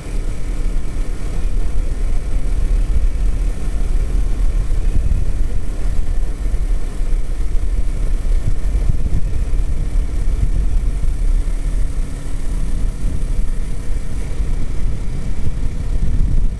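Kawasaki Z400's parallel-twin engine running at a steady cruising speed under a heavy low rumble of wind on the microphone.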